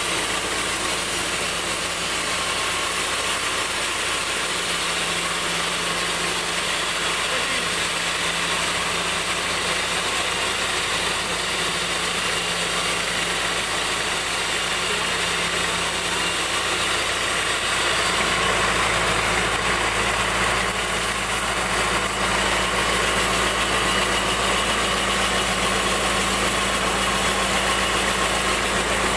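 Sawmill bandsaw machinery running steadily, its low hum getting stronger about eighteen seconds in.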